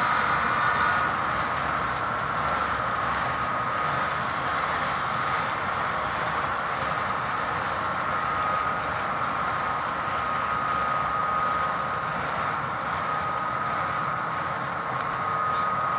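HO scale model coal train, its loaded hopper cars rolling along the track with a steady rolling noise and a high whine.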